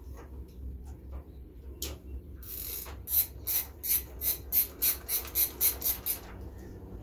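Ratcheting screwdriver clicking as a side-cover bolt is driven in: a few faint clicks, then from about two and a half seconds in a quick even run of sharp ratchet clicks, about four a second, for nearly four seconds.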